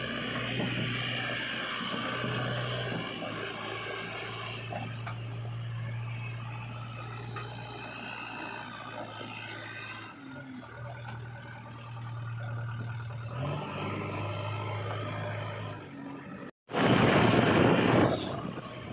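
Heavy vehicle engine running with a steady low hum. A brief cut near the end is followed by a louder rushing noise lasting a second or two.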